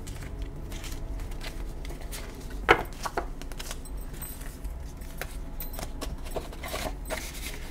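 Paper banknotes and plastic vellum cash envelopes being handled: scattered rustling and crinkling with light taps, and one sharper knock about two and a half seconds in.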